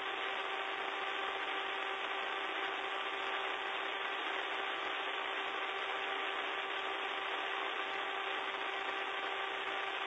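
Steady aircraft engine noise with a constant hum of several steady tones, heard through the aircrew's intercom and radio, which cut off the low end and the highs.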